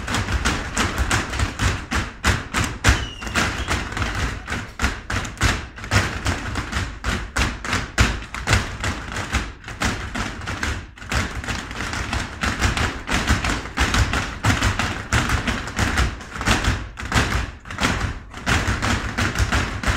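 Folk dancers' boots stamping and tapping in rhythm on a wooden parquet floor.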